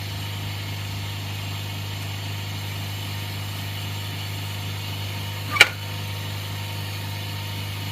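Steady low hum of a small electric vacuum pump motor running, with one sharp click about five and a half seconds in.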